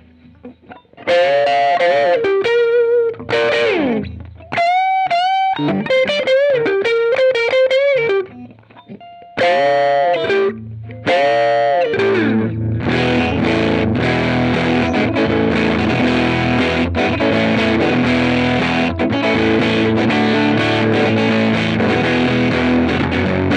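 Electric guitar played through a Ground Control Audio Serpens optical boost/compressor with its gain turned up. For about twelve seconds it plays separate lead notes with wide bends and vibrato, then it switches to continuous distorted chord riffing.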